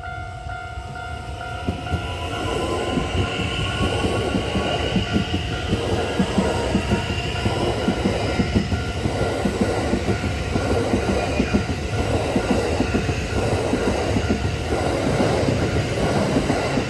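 Ten-car Kintetsu electric train, 8A-series sets coupled with a 1252-series set, passing at speed with its wheels clattering steadily over the rail joints. A level-crossing alarm rings with steady tones throughout.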